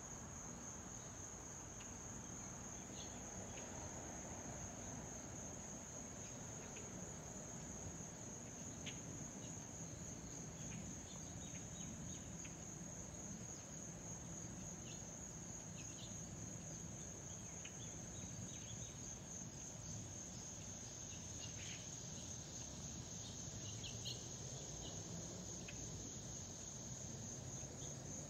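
Insects chirring in one unbroken high-pitched drone, over the faint, steady low rumble of a JetBlue Airbus A320 jet airliner flying high overhead. A few short high chirps break in here and there.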